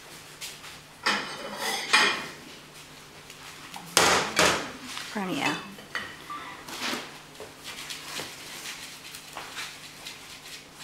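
Ceramic plates clattering against each other and on a counter, in a cluster of knocks about one to two seconds in and one sharp knock about four seconds in. Between them, softer scraping of a garlic clove rubbed on crisp toasted bread.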